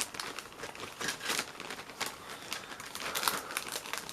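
Plastic bag holding model kit parts crinkling and crackling in irregular bursts as hands try to work the parts out of it.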